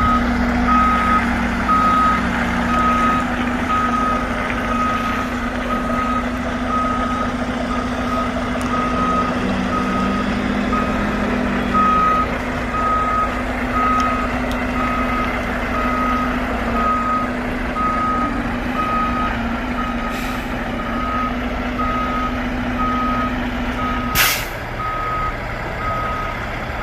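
A semi-truck reversing with its backup alarm beeping about once a second over the steady running of the diesel engine. About 24 seconds in, the air brakes are set with a short, loud hiss as the truck stops at the dock.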